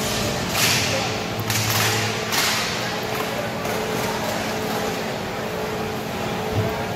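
Roller hockey play heard through the rink glass: three sharp hissing slaps in the first two and a half seconds and one short knock near the end, over a steady hum.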